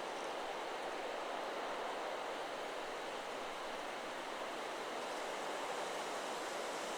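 Steady wind blowing through forest trees, a continuous rushing of leaves and branches.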